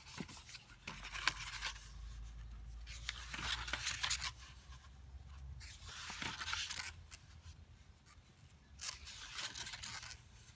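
Paper pages of a hardcover book being turned by hand, rustling and sliding in about four bursts.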